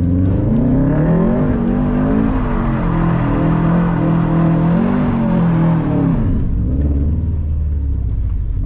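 Subaru WRX STI's turbocharged flat-four engine revving hard during a drift on wet pavement, its pitch rising and falling repeatedly. It drops back to a low idle about six and a half seconds in.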